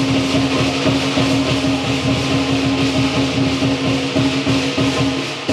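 Lion dance percussion band playing a fast, dense beat on drum and cymbals, over a steady ringing tone.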